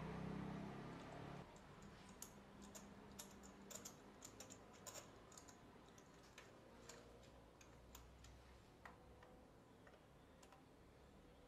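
Faint, irregular light metallic clicks and ticks of a spark plug socket and extension being turned by hand to unscrew a spark plug. They come thickest in the first half and thin out later.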